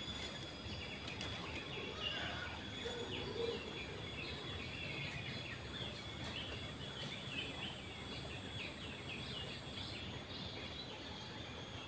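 Small birds chirping in quick, repeated short falling notes. Under them run a steady high insect drone and a low background hiss.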